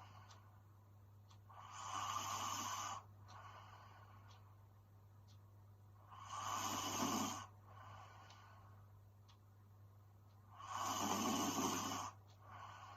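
A young woman snoring in her sleep: three loud snores about four and a half seconds apart, each followed by a softer breath.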